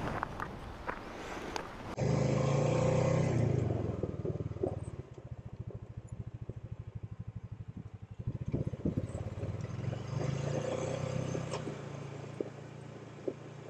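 Wind and handling noise, then a Honda Rubicon ATV's single-cylinder engine pulling away, easing off to a slow putter with the separate firing strokes audible, then picking up again. Scattered knocks and rattles come from the quad on a gravel trail.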